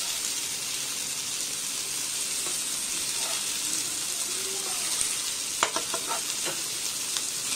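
Masala-marinated small fish shallow-frying in a little oil in a nonstick pan, a steady sizzle. A metal spatula clicks and scrapes against the pan several times about three-quarters of the way in as the pieces are turned over.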